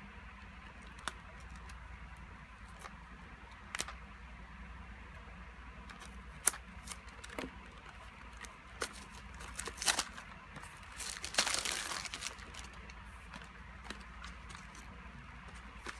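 Hands opening product packaging: scattered sharp clicks and taps, with a denser stretch of crinkling and tearing about eleven to twelve seconds in, over a steady low hum.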